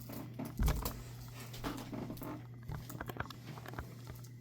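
Small irregular taps, clicks and rustles of a stack of cardboard game cards being handled, with one dull thump under a second in, over a steady low hum.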